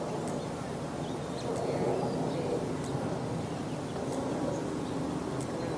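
Indistinct chatter of onlookers, with short high bird chirps about every second and a half and a low steady hum underneath.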